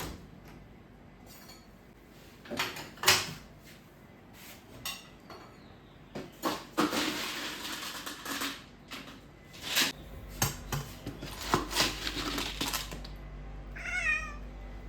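Food bowls and cutlery clinking and scraping in a series of knocks, the loudest about three seconds in. A cat meows once near the end.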